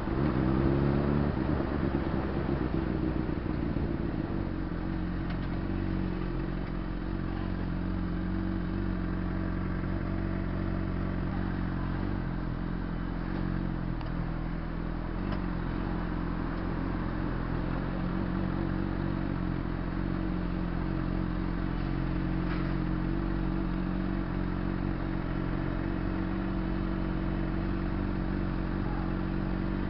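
Honda CBR600RR's inline-four engine, its revs dropping in the first second or so and then idling steadily in traffic.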